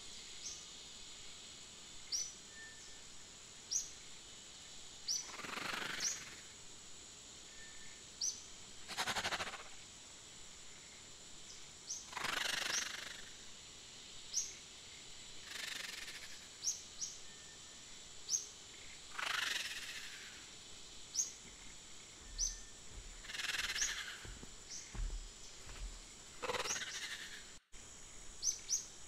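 Nature ambience: a bird chirps in short rising notes about every second and a half over a steady high hiss, with a rustling swish every three to four seconds. The sound cuts out for an instant near the end.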